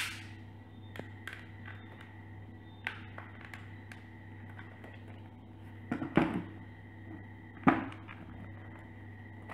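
Handling noise from hands working close to the microphone: scattered small clicks and two louder knocks, one about six seconds in and one just under eight, over a steady low electrical hum.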